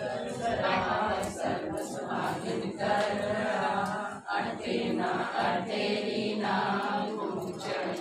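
A group of women singing a Karva Chauth puja song together without instruments, in long held phrases with a short break about four seconds in.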